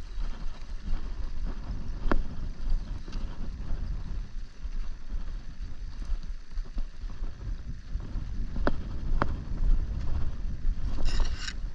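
Wind buffeting the camera microphone, a fluctuating low rumble, with three sharp clicks: one about two seconds in and two close together near the end.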